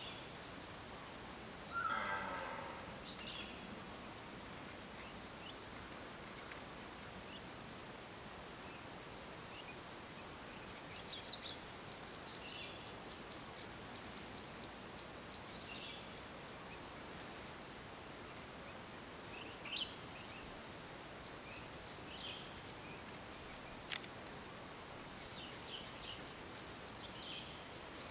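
Forest ambience: a steady faint hiss with scattered high bird chirps and trills, a louder, lower call about two seconds in, and a single sharp click near the end.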